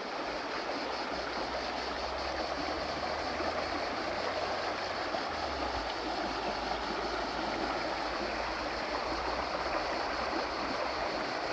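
River water flowing in a steady rush, with a low rumble underneath.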